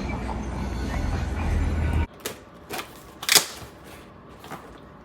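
A dense background of music with heavy bass cuts off abruptly about two seconds in. After it comes a quiet room with a handful of sharp clicks and knocks from handling a box, the loudest about a second later.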